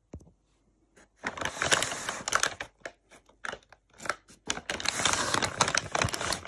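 Paper wrapper of a fire log crinkling and rustling as a hand squeezes and pulls at it, in two long bursts with scattered sharp crackles between.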